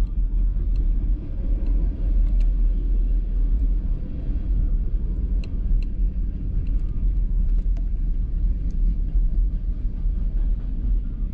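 Car driving slowly, heard from inside the cabin: a steady low engine and road rumble, with a few faint scattered clicks.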